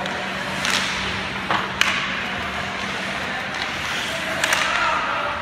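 Scattered sharp clacks of hockey sticks striking the puck and ice, the loudest about two seconds in. Underneath is the steady noise of an ice arena and a low hum that stops partway through.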